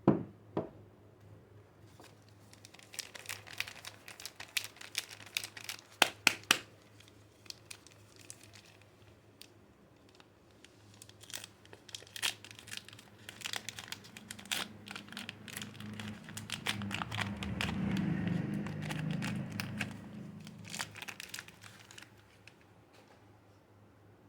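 Soap-bar wrapping crinkling and tearing as it is unwrapped by hand, in bursts, with a few sharp clicks. About 15 to 20 seconds in, a heavier low rubbing builds under the crinkling.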